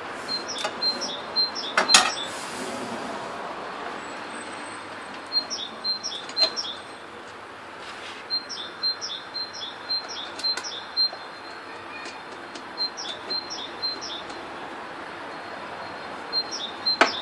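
A small songbird singing phrases of quick, high repeated chirps, phrase after phrase, with a few sharp clicks from the wooden drill press being handled, the loudest about two seconds in.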